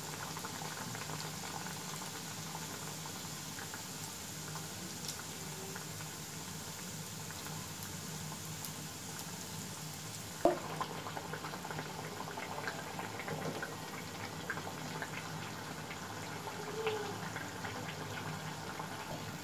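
Egg patties deep-frying in medium-hot oil in a wok: a steady bubbling sizzle, with one sharp click about halfway through.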